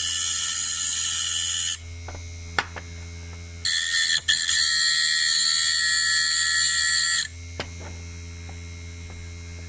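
A small grinding machine runs with a steady low hum while a CNC V-bit is pressed against its wheel twice, each time giving a loud, high-pitched grinding hiss: once for about two seconds at the start, and again for about three and a half seconds in the middle. A few light clicks come between the passes.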